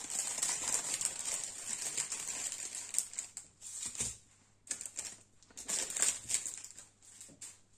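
Plastic packaging crinkling and rustling as it is unwrapped and handled, in irregular crackly bursts with a short pause about halfway through.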